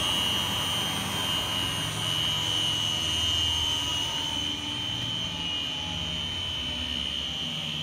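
WAM horizontal mixer running empty: its electric motor and gearbox turn the mixing shaft with a steady high whine over a low hum.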